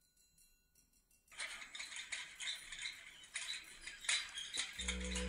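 Irregular rattling and clinking, starting about a second in after near silence. Gentle background music comes in just before the end.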